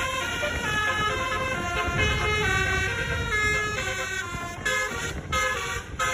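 Basuri telolet multi-tone horn playing a quick tune, one held note after another stepping up and down in pitch, over a low rumble.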